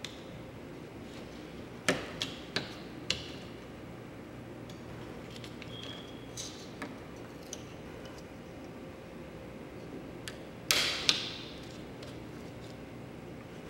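A few sharp clicks and taps over a steady low hum: a cluster of four about two seconds in and a louder pair near the end, with a brief faint high beep about six seconds in.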